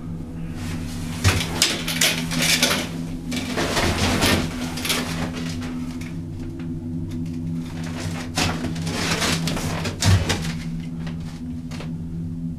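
Inside a cable-car gondola cabin riding along its rope: a steady low hum, with several spells of rattling and a few sharp knocks from the cabin, the loudest about ten seconds in.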